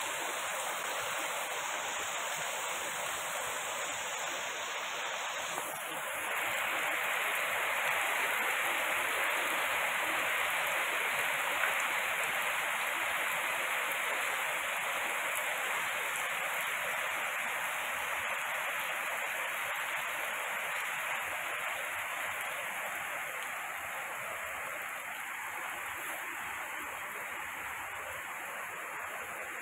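Heavy rain falling steadily: a dense, even hiss of rain on paving and plants, with water running across the lane. It eases slightly toward the end.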